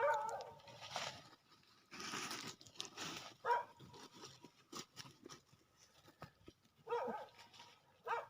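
Goat kid bleating in short calls, four times: at the start, about three and a half seconds in, about seven seconds in and at the end, with crunching and rustling between. The kid is calling because it is hungry.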